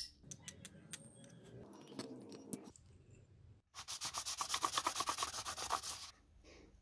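Small sawn aluminium plate rubbed back and forth on a sheet of sandpaper, smoothing its cut edges: a run of quick, even scraping strokes lasting a little over two seconds, starting almost four seconds in. Before it come a sharp click at the very start and then light clicks and taps as the metal pieces are handled.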